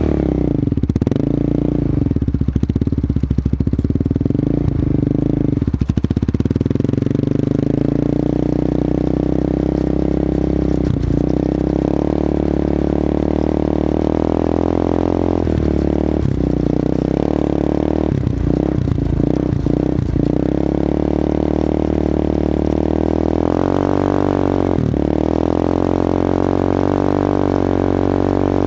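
Yamaha Warrior 350 ATV's single-cylinder four-stroke engine running under load while towing a snowboarder, mostly at a steady throttle. The revs dip briefly several times in the middle and pick up again near the end.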